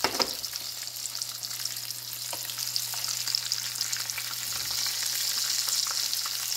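Chicken pieces deep-frying in hot oil in a nonstick pan: a steady crackling sizzle that grows a little louder in the second half. The chicken is fried through and is being lifted out with a metal spoon, which clicks against the pan a few times. A faint steady hum runs underneath.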